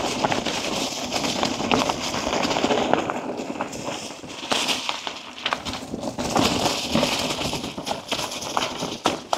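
Mountain bike riding a dirt trail through corners: tyres rolling over loose dirt and rocks, with many small clicks and rattles.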